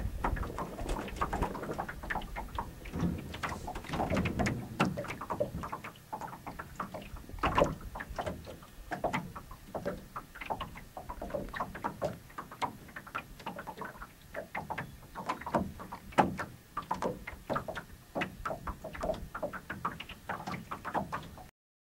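Small waves lapping and splashing against the hull of a Montgomery 15 sailboat under sail, an irregular patter of short splashes, heavier with a low rumble for the first few seconds. It cuts off suddenly just before the end.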